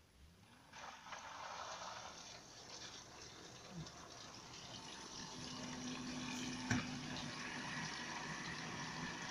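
Bosch dishwasher running, with water rushing inside it that starts about a second in and grows louder. A low steady hum joins a little past halfway, and there is a single click shortly after.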